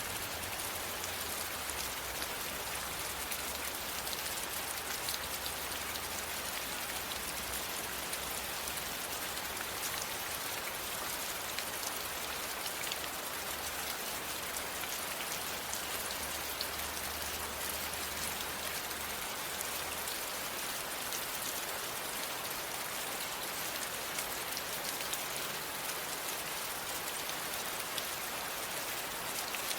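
Steady rain falling: an even hiss with many small drop ticks. A faint low hum underneath fades out about two-thirds of the way through.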